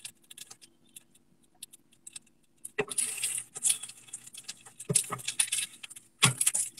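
Metal kitchen utensils clattering and scraping against a pan and plate as a cooked pancake is lifted out. The clatter starts about three seconds in, after a quiet stretch, and comes as irregular clicks and clinks, with a faint steady hum underneath.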